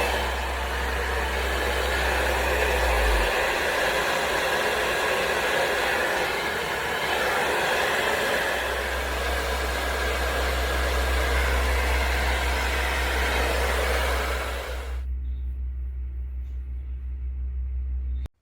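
Hand-held hair dryer (InfinitiPro by Conair, 1875 W) running on its low setting, a steady rush of blown air with a low rumble. About 15 seconds in the rush drops away to a quieter, wavering hum, and the sound cuts off abruptly near the end.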